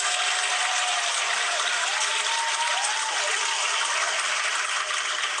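Crowd applause, clapping with a few faint cheers, starting and stopping abruptly like a played sound effect.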